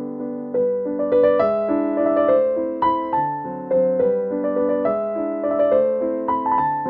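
Background piano music: a melody of single notes stepping over held chords.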